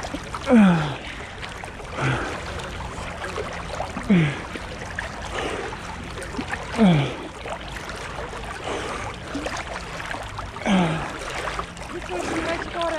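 A swimmer in ice-cold river water breathing hard, with a groaning exhale that falls in pitch every two to four seconds, over steady splashing from the strokes.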